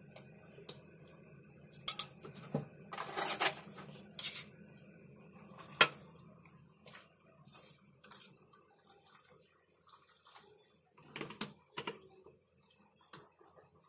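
Scattered clinks and clatters of a metal skimmer against a cooking pot and a plastic colander, a quick run of them about three seconds in, over a low steady hum during the first half.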